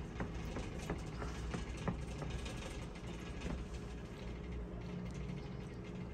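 Metal spoons clinking now and then against ceramic soup bowls, a few faint short clicks, over a low steady hum.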